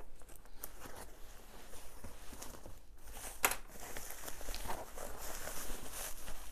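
Plastic bubble-wrap packaging rustling and crinkling as it is handled and pulled out of a cardboard box, with one sharp snap about three and a half seconds in.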